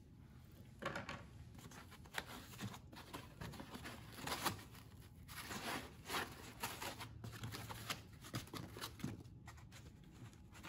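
Packaging being handled: a hand rummaging in a figure box and lifting out an inner packaging insert, with irregular rustling, scraping and light knocks.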